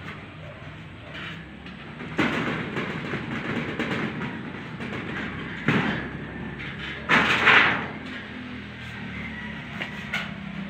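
Corrugated galvanized-iron roofing sheets rattling and scraping against the steel roof frame as they are handled, in uneven bursts. There is a long stretch about two seconds in, a sharp hit near the middle, and the loudest rattle about seven seconds in.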